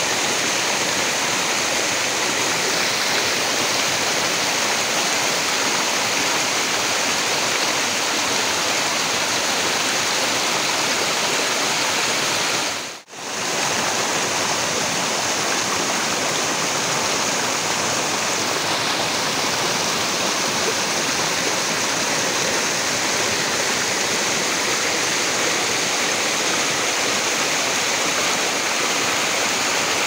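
Small forest stream rushing and splashing over rocks in little cascades: a steady, even rush of water that drops out briefly near the middle.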